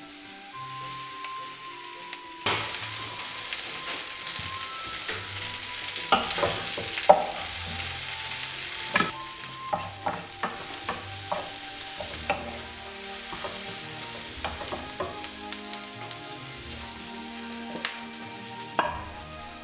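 Onions, carrots and garlic sizzling in olive oil in a frying pan while a leg of lamb is seared. A utensil clicks and scrapes against the pan as the vegetables are stirred. The sizzling starts about two and a half seconds in, and the knocks come in quick clusters through the middle and once more near the end.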